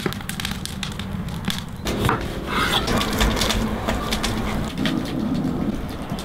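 Split wood burning in a fire pit, crackling with sharp pops over a low rumble. From about two seconds in, the wet crushing of a lemon half being twisted on a plastic citrus juicer joins the crackle.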